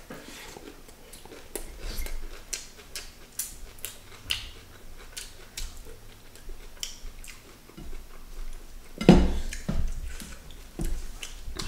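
Eating sounds of people eating by hand from plates: chewing and lip smacks with scattered light clicks of dishes. A louder thump about nine seconds in.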